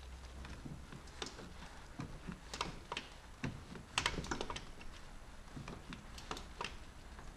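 Irregular metallic clicking of a torque wrench set to 11 Nm as a water pump bolt on a Renault 1.5 dCi diesel is given its final tightening. The clicks bunch together between about two and a half and four and a half seconds in.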